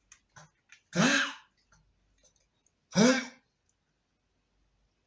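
13-year-old shih tzu coughing twice, about two seconds apart: short, harsh hacking coughs, each with a brief rising honk, from a bad cough the dog has caught.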